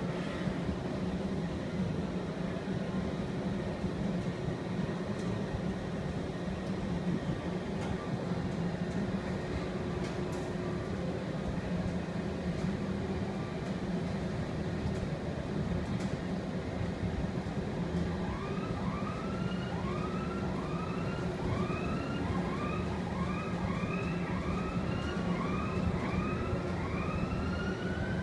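Steady low mechanical hum inside the enclosed Sky Cabin observation tower cabin. About two-thirds of the way in, a series of siren-like rising whoops begins, a little more than one a second.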